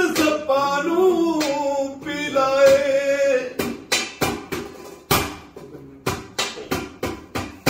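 A man singing a Punjabi song without accompaniment, drawing out one long wavering line for about three and a half seconds before breaking off. A run of sharp clicks, about three a second, follows to the end.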